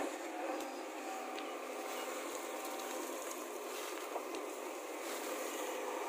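JCB backhoe loader's diesel engine running under load as the backhoe bucket digs into stony soil and lifts out a load of earth. A few short knocks of bucket and stones come through, and a faint steady whine is heard in the first half.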